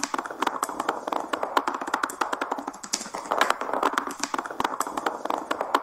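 Rapid, uneven tapping, many strikes a second.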